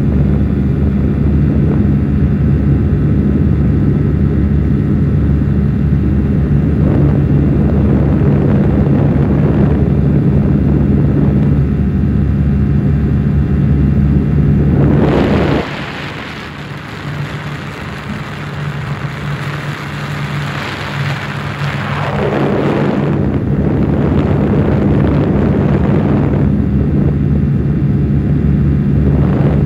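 Small aircraft's engine droning steadily, heard from inside the cabin. About halfway through, a loud rushing hiss takes over for several seconds while the low drone fades, before the steady drone returns.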